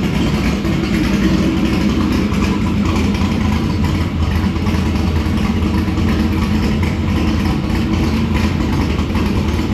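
Chevy Nova drag car's engine idling steadily and loudly, being run for a while to warm up after its first start-up of the season.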